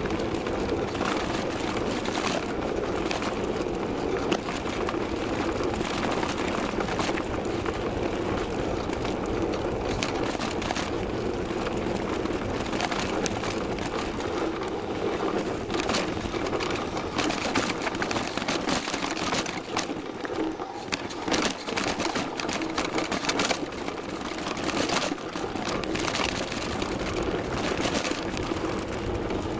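Downhill mountain bike riding a rough trail, heard through a camera mounted on the bike: a steady rush of tyre and wind noise with frequent rattles and knocks as the bike bounces over the ground.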